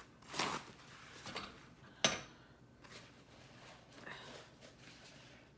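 Eating sounds at a table: a utensil clinking against dishes, with one sharp click about two seconds in and a few softer knocks around it.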